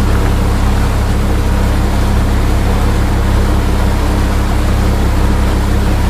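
Motorboat engine running steadily: a loud, even low drone.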